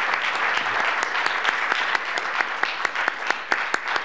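Audience applauding: many hands clapping at once, thinning to scattered single claps near the end.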